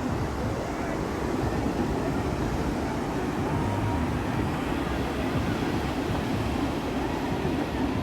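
Steady low rumble of beach wind on the microphone mixed with surf, with no single event standing out.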